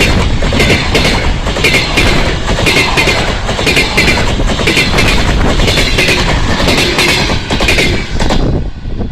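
Passenger train wheels clacking over rail joints at speed as the train passes, in groups of sharp knocks about twice a second over a loud rumble. The clatter stops fairly suddenly about eight seconds in.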